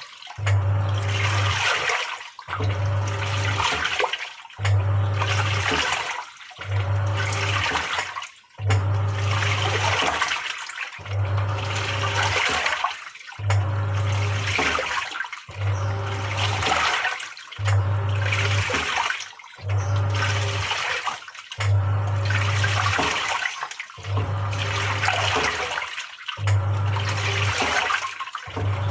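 Samsung top-loading washing machine agitating a load in full water. The pulsator motor hums for about a second and a half, stops briefly, then starts again the other way, over and over, while the water churns and sloshes in the tub.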